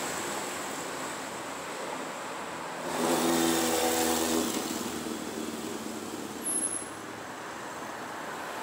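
Street traffic with steady road noise; about three seconds in a car engine's tone swells for a second and a half, then fades.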